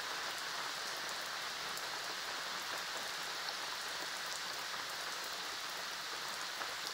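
Rain falling steadily on a wet concrete garden path and patio: an even hiss with scattered sharp ticks of drops striking.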